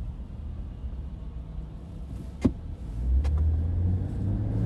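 Car driving on a snowy road, heard from inside the cabin: a steady low rumble of engine and tyres that grows louder about three seconds in, with a sharp click about halfway through.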